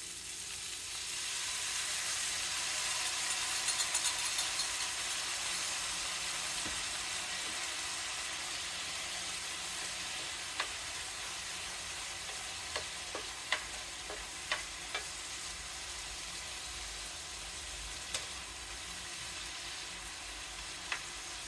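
Tofu and broccoli stir fry sizzling in a skillet: the hiss swells about a second in as the freshly added sauce hits the hot pan, then settles into steady frying. A few sharp clicks of stirring against the pan come and go in the second half.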